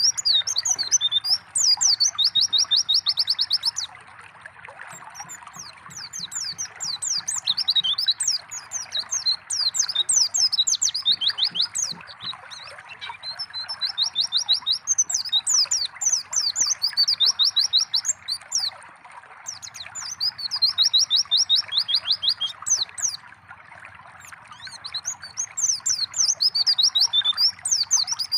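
White-eye (pleci) singing in bouts of fast, high chirping trills, with a new bout every few seconds. Under it, steady trickling water.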